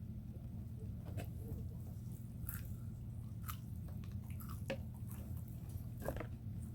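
A person chewing crispy fried chicken, with a scattering of short crunches about once a second over a steady low hum.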